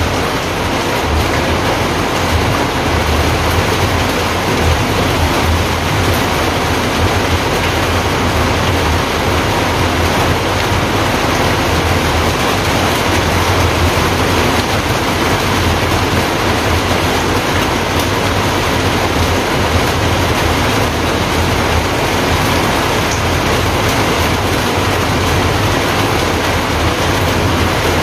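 A steady, even rushing noise with a low rumble beneath it, unchanging throughout.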